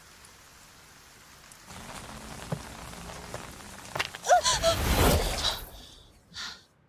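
Rain falling, light at first, growing heavier about two seconds in and swelling into a loud downpour, with a short voiced cry about four seconds in. The rain cuts off suddenly near the end.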